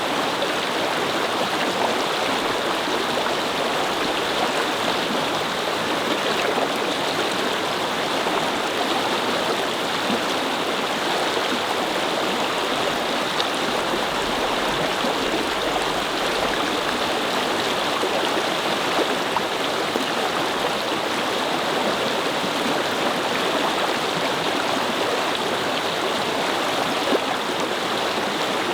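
Babbling brook: a steady, even rush of flowing water.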